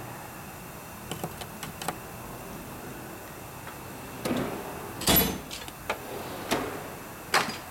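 Steel drawers of a Snap-on tool chest sliding open and shut and clunking to a stop against their stops, after a few light metal clicks. The loudest clunks come about five seconds in and again near the end.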